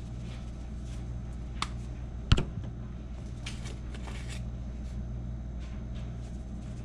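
Pepper container handled over the pot: a sharp click a little over two seconds in, then a few soft rustling shakes about a second later, over a steady low hum.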